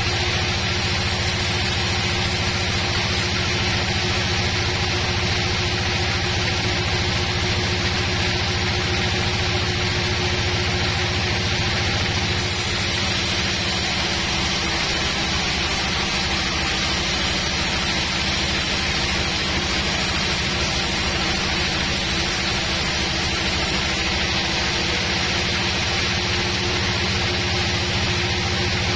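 Band sawmill running steadily, its band blade sawing lengthwise through a thick old teak log on the carriage. The machine's hum and the cutting hiss hold even throughout.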